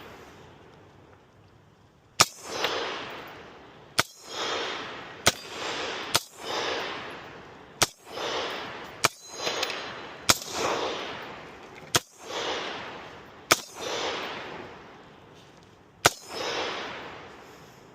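Slow, deliberate single shots from a firearm, about eight of them a second or two apart. Each crack is followed by a long echo rolling back off the surrounding valley.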